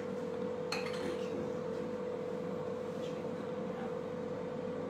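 Kitchenware clinking: one sharp, glassy clink with a brief high ring about a second in, and a fainter one a couple of seconds later, over a steady low hum.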